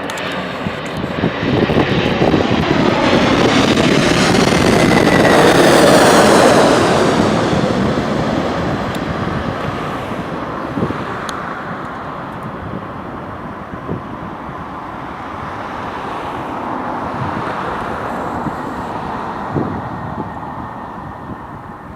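Jet airliner's engines passing close by, swelling to a peak about six seconds in with a falling whine as it goes past, then fading slowly as it moves away.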